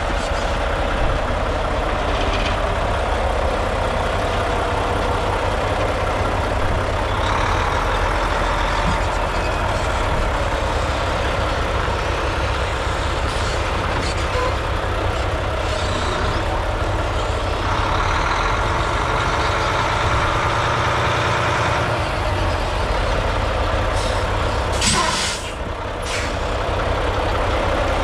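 Mack CHU613 truck tractor's diesel engine idling steadily with a low rumble, and a short hiss near the end.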